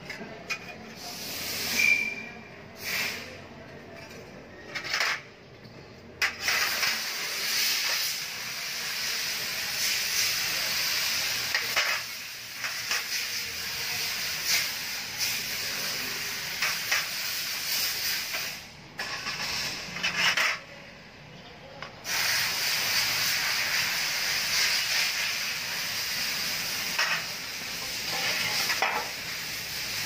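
Light metallic clicks of the sheet-metal transmission pan and strainer being handled on a steel tray. A steady hiss comes in about six seconds in and runs most of the rest, dropping out briefly twice.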